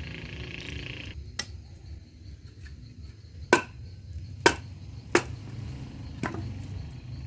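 Five sharp impacts at uneven spacing, roughly a second apart, the middle three the loudest.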